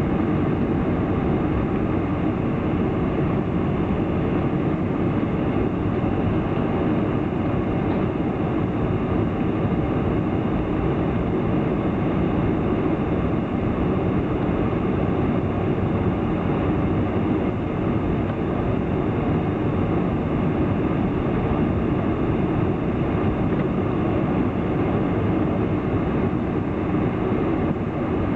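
Steady low rumble inside the cabin of a Boeing 747 airliner taxiing, its engines running at low power.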